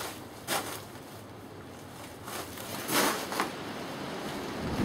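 Rustling and handling noise from a hand-held camera being carried, with brief scuffs about half a second in and again around three seconds in, and a low rumble building near the end.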